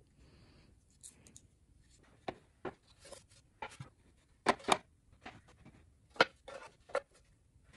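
Wooden rings and round wooden discs knocking and clacking against each other and the wooden benchtop as they are handled, stacked and set down: about a dozen short, sharp taps, the loudest a little past halfway.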